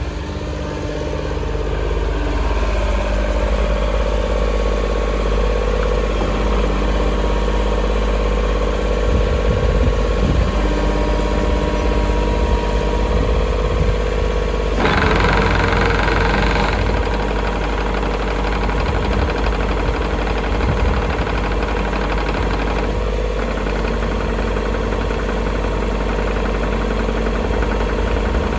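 JCB 60C-2 midi excavator's diesel engine running: it rises in speed over the first few seconds, then holds a steady drone. About 15 seconds in there is a louder, harsher stretch lasting about two seconds.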